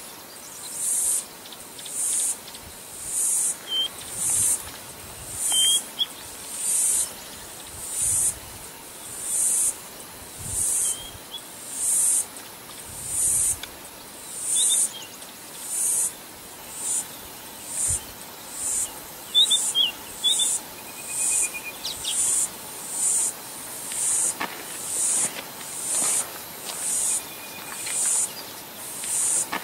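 An insect calling in short, high-pitched buzzes that repeat evenly a little more than once a second, with a few brief bird chirps in between.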